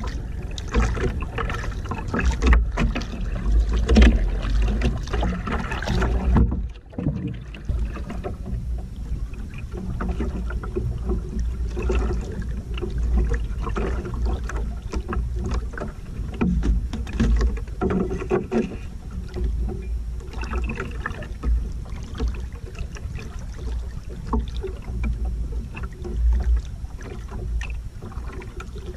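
Sea water splashing and lapping against a small outrigger canoe's hull, with a low wind rumble on the microphone. It is louder and busier while the paddle is working in the first six seconds or so, then drops to gentler, uneven sloshing as the canoe drifts.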